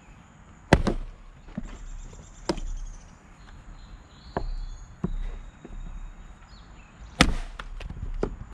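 An axe striking a knotty maple round twice, two sharp chopping blows about six and a half seconds apart, with lighter wooden knocks between them. The round does not split.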